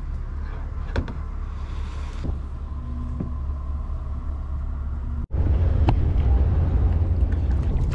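Steady low rumble of wind buffeting the microphone outdoors on a tidal creek, with a few faint knocks. After a cut about five seconds in, the rumble is louder, over choppy water.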